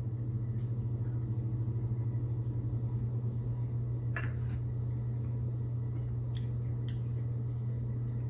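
A steady low hum of room background, with a small clack about four seconds in as a plastic shot cup is set down on a wooden cutting board, and two faint ticks a little later.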